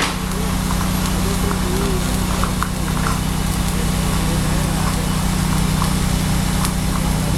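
Electric arc welding on a structural steel beam, the arc crackling and sizzling steadily, over the constant hum of an engine running.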